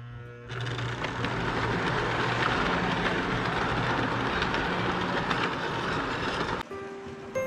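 Prewar American Flyer O gauge passenger train rolling past on steel T-rail track, a steady metallic running noise that starts about half a second in and cuts off abruptly near the end.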